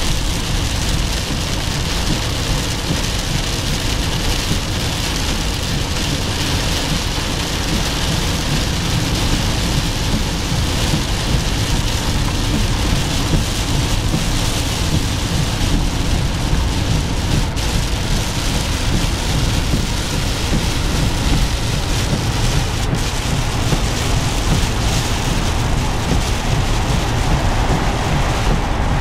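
Heavy rain beating on a car's roof and windshield, heard from inside the cabin, over steady tyre and road noise from driving on a wet freeway. The noise is an even, unbroken hiss with a low rumble beneath it.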